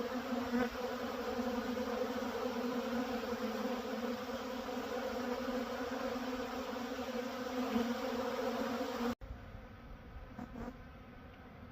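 Swarm of honey bees buzzing: a dense, steady hum. About nine seconds in it drops suddenly to a quieter buzz.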